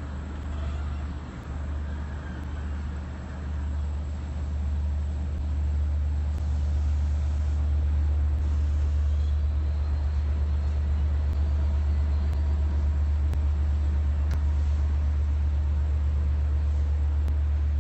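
Steady low drone of a standing diesel passenger train, its DM30AC locomotives idling. It grows a little louder about six seconds in.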